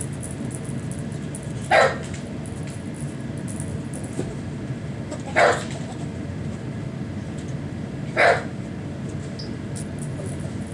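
A ferret gives three short, sharp calls, each a few seconds apart, over a steady low hum.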